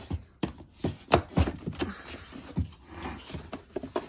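Eyeshadow palettes knocking and clacking against each other and the drawer as they are pushed and shifted, in a series of separate sharp knocks.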